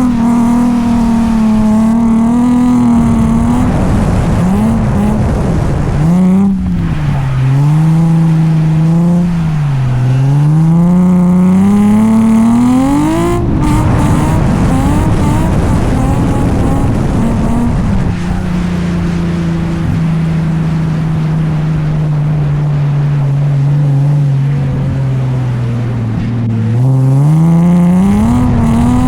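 Nissan 350Z's V6 engine revving up and down repeatedly through a drift run. The revs are held high for stretches, sag slowly for several seconds near the end, then climb again.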